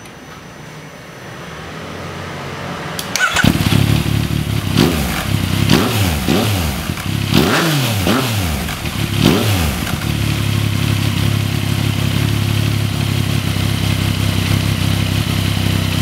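A 2014 Yamaha MT-09's inline three-cylinder engine starts about three seconds in and is blipped several times. It then settles into a steady idle. The cam chain tensioner is held by a bolt screwed in against it.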